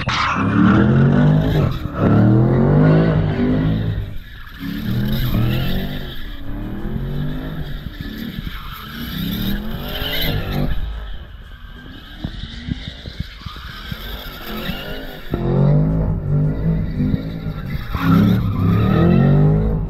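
Red Chevrolet Camaro doing donuts, its engine revving up and down in repeated surges while the rear tyres screech and smoke. The revving eases off for a few seconds midway, then climbs again near the end.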